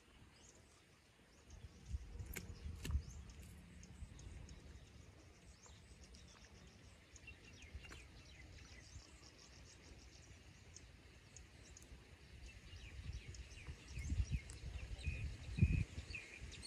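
Faint outdoor ambience: a low rumble with a couple of knocks about two and three seconds in. High chirps sound throughout, with a run of short repeated chirps near the end.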